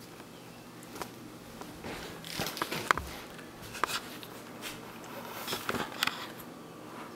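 A small dog biting and tearing at a cardboard Corn Chex cereal box: irregular crinkles, small rips and knocks of thin cardboard.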